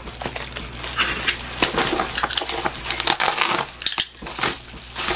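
Plastic bubble mailer crinkling and rustling as it is handled, a dense run of crackles that eases briefly about three seconds in.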